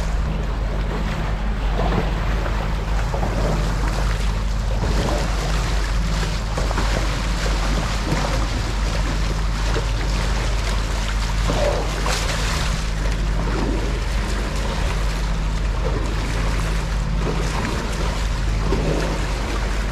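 Boat's engine running steadily under way, a low hum under water rushing along the hull, with wind buffeting the microphone.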